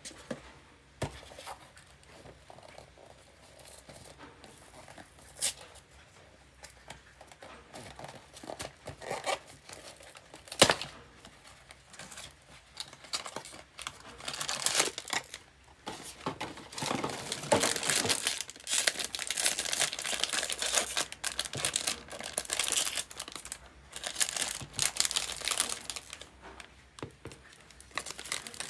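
A cardboard blind box being handled and opened, with a few sharp taps and clicks, then a foil bag torn open and crinkled in the hands from about halfway through, louder and continuous.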